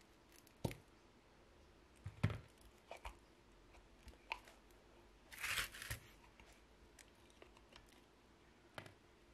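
Brake caliper slide pins being pulled out of their rubber boots in a 1999 Honda Civic caliper bracket: a few separate small clicks and knocks, with a short rustling scrape about halfway through.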